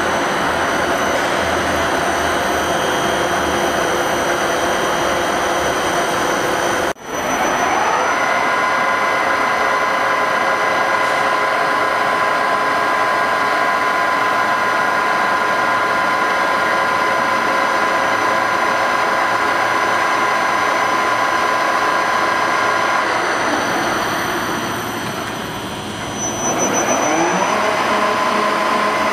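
Ryazan deep hole boring machine running, with the steady whine of its electric drive over general machine noise. After a break about a quarter of the way in, the whine rises in pitch and holds steady, then dies away and rises again near the end.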